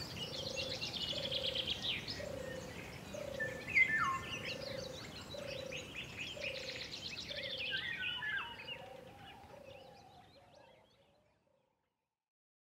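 Birds chirping and trilling, with a low note repeated steadily about three times every two seconds underneath; the sound fades out to silence near the end.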